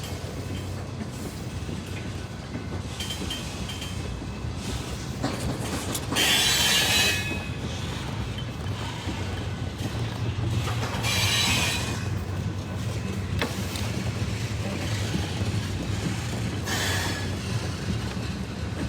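Sierra Northern Railway diesel locomotive hauling a freight train, its engine running with a steady low hum as the train rolls along the rails. High-pitched wheel squeals come twice, about six and eleven seconds in, and more faintly near the end.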